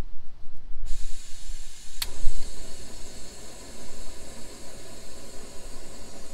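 Small canister gas stove: gas starts hissing about a second in as the valve is opened. A sharp click comes a second later, and then the hiss runs on steadily, fuller and lower.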